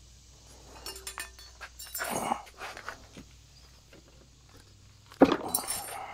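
Metal tools and engine parts clinking and clanking as they are handled, with a louder sharp clank about five seconds in.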